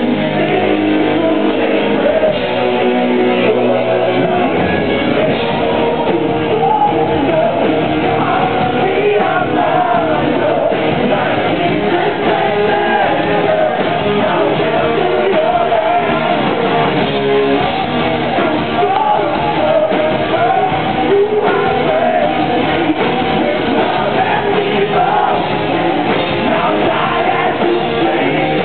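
Rock band playing live, with guitars, drums and a singer. The audience-camera microphone makes it loud and dull, with the highs cut off.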